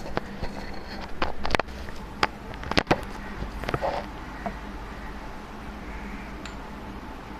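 Kinetic sand being cut and handled: a few sharp clicks and short crumbly scrapes in the first four seconds, then only a steady low hum and hiss.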